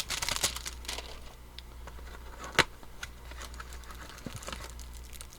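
Trading cards being handled and flipped through by hand: light rustling and small clicks, with one sharper tap about two and a half seconds in, over a steady low hum.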